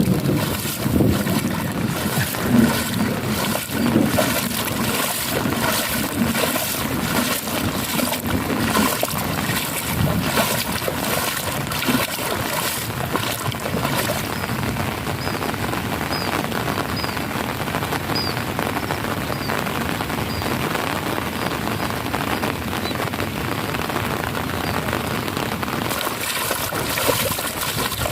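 Heavy rain falling steadily, splashing into puddles and running water. A run of faint, high, short chirps comes through the rain near the middle.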